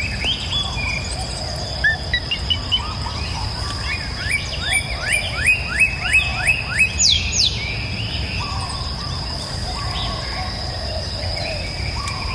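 Wild songbirds calling and singing. One bird gives a quick series of about ten rising notes, about three a second, the loudest part. A sharp upward whistle follows, then scattered softer calls. A steady high-pitched buzz, typical of insects, and a low rumble run underneath.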